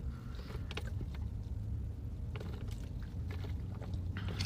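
A steady low hum, with a few faint short clicks scattered through it.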